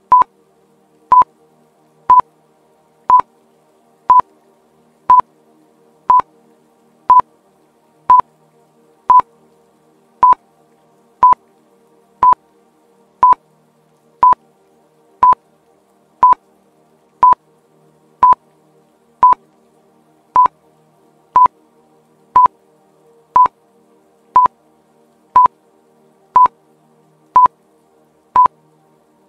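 Quiz countdown timer beeping: a short electronic beep once every second, ticking off the seconds left to answer. Faint soft background music plays underneath.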